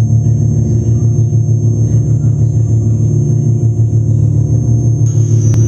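Low, steady electronic drone soundtrack with a fast flutter and thin, high sustained tones above it. The high tone shifts about five seconds in, and a single sharp click follows soon after.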